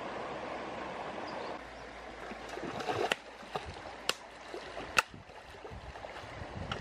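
Shallow stream running over rocks, a steady rushing that drops a little after about a second and a half. Then sharp splashes of a person wading and reaching into the water, about four of them, the loudest a little past the middle.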